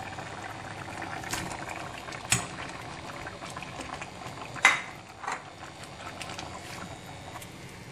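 Cubes of winter melon tipped from a plate into simmering red curry, over the steady low bubbling of the curry. A few sharp knocks come through, the loudest about halfway through.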